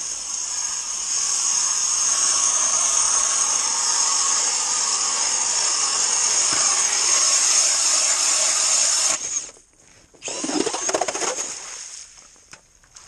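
Cordless drill driving an ice auger through lake ice: steady drilling for about nine seconds that stops abruptly, then a brief, rougher second burst about a second later.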